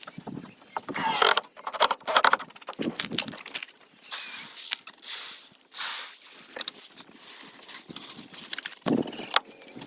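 Backyard chickens clucking and feeding, with scattered clicks and taps from their pecking.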